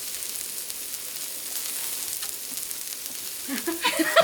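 Steady sizzling of food cooking, a continuous hiss with faint crackle. Voices start up near the end.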